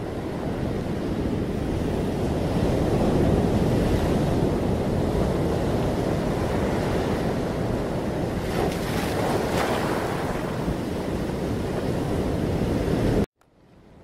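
Ocean surf: a steady wash of waves breaking and receding, swelling and easing. It cuts off suddenly near the end, then fades back in.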